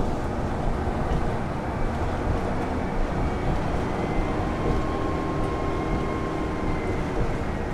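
Steady low rumble of a New Flyer DE60LFR diesel-electric hybrid articulated bus at highway speed, its Cummins ISL9 engine and tyre noise heard from inside the cabin. A faint steady whine joins about halfway through.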